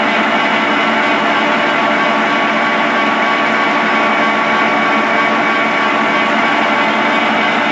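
Barber-Colman 16-16 gear hobber running through its cycle: a steady mechanical whine from its motors and gear train, many fixed tones held unchanged throughout.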